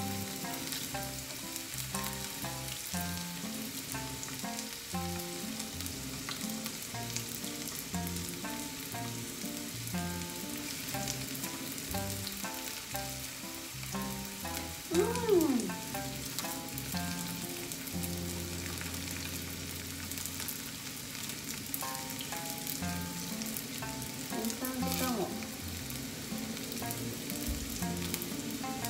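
Thin slices of goya (bitter melon) shallow-frying in a little oil in a frying pan: a steady sizzle that has turned crisp as the slices brown, the sign they are nearly done, with tongs stirring and turning them. A brief louder falling tone about halfway through, and faint music underneath.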